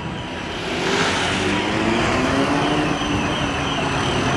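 Siemens Combino city tram approaching through a curve, its running noise swelling about a second in, with low tones from the drive that glide up and down.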